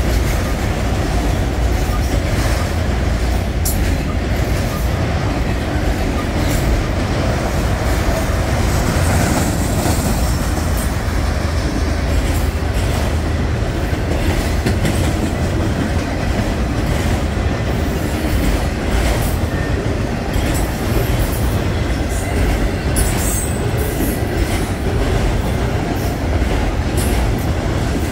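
Freight train of enclosed autorack cars rolling past close by: a loud, steady rumble of steel wheels on rail with scattered sharp clicks from the wheels and rail joints.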